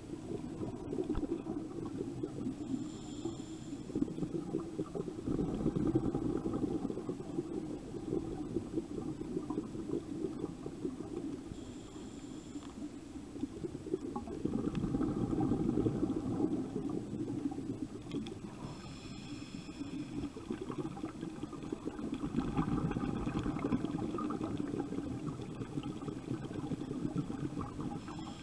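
Boat under way: a steady low rumble of engine and water rushing along the hull, swelling and easing every several seconds. A faint short high tone comes in a few times.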